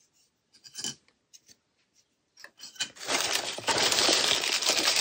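Crumpled newspaper packing crinkling and rustling as hands dig through it in a cardboard parcel. There are a few soft clicks and rustles at first, then continuous loud crinkling from about three seconds in.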